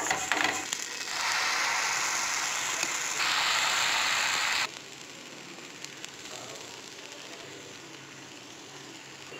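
Oil sizzling on a hot dosa tawa as it is greased with a halved onion and pesarattu batter is spread over it. The sizzle is loud for a few seconds, then cuts off abruptly about five seconds in, leaving a faint steady hiss.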